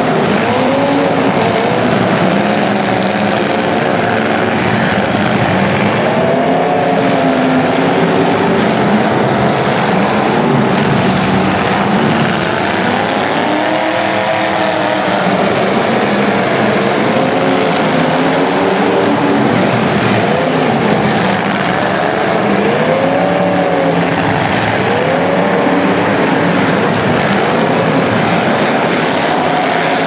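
Several demolition derby cars' engines revving at once, their pitches rising and falling and overlapping over a constant loud din.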